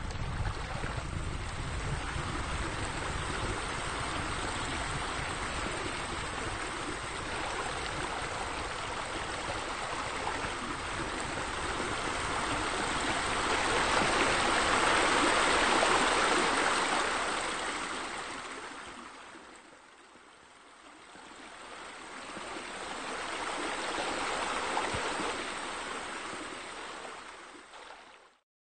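Steady rushing of running water, without voices or music. It swells loudest about halfway through, dips away briefly, swells again, and cuts off suddenly near the end.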